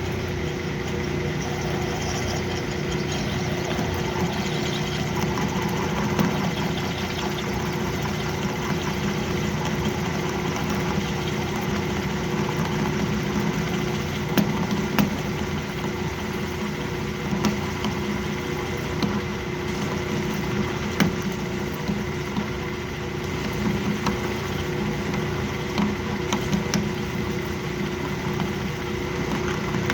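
Metal lathe running with a steady motor hum and whine while the tool takes a cut fed by the compound, with irregular sharp ticks through it. The cut sounds rough, which the machinist puts down to a lack of rigidity in the setup or a dull tool.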